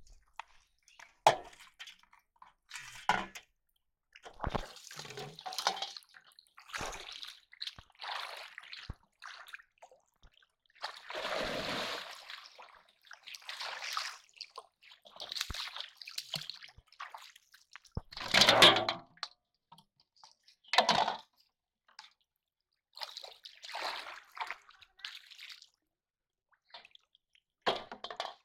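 Shallow water splashing and sloshing as someone wades through it, in irregular bursts with quiet gaps between, the loudest splash about two-thirds of the way through.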